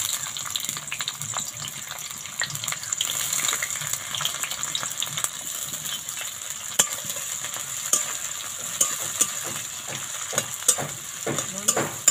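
Chopped onions sizzling in hot mustard oil in a metal wok, a steady frying hiss. Scattered clicks and scrapes of a spatula stirring them come more often near the end.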